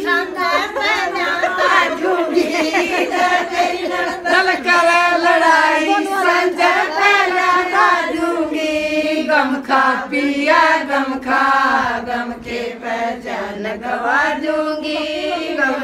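A group of women singing a Haryanvi folk song together, voices only, with no instruments.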